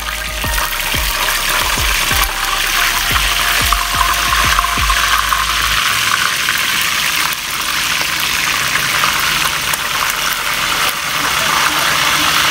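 Hot oil sizzling steadily around a whole chicken deep-frying in a pot. In the first few seconds, metal tongs and spatulas click against the pot as the chicken is turned.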